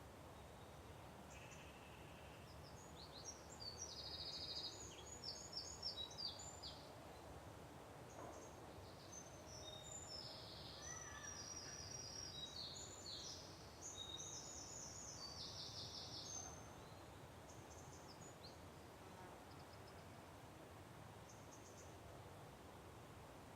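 Songbirds chirping and singing in a morning chorus: short high calls and quick rattling trills, busiest from about three seconds in until a little past halfway, then thinning out, over a faint steady background hiss.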